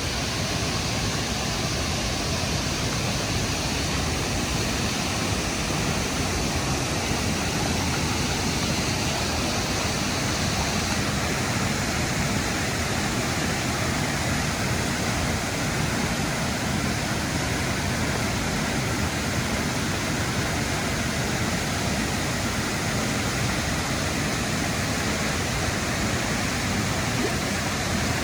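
Steady rushing water of a waterfall.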